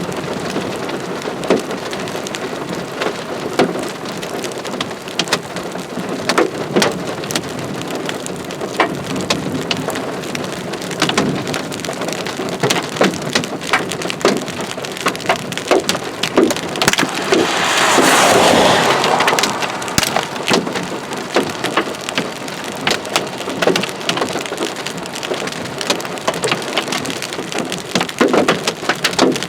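Heavy rain from a tornadic supercell, a steady rushing hiss with many sharp individual drop impacts. A louder rushing swell comes about eighteen seconds in and fades over a couple of seconds.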